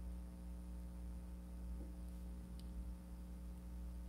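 Steady low electrical hum with a couple of faint ticks: room tone.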